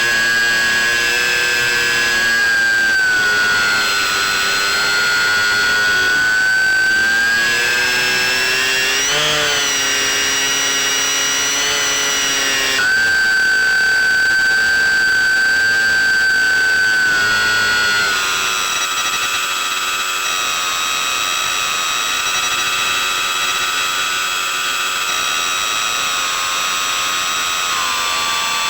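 The C1 Chaser RC model plane's motor and propeller running as a steady high-pitched whine. The pitch wavers with throttle, rises briefly a third of the way in, and drops to a lower, slightly quieter note about two-thirds of the way through.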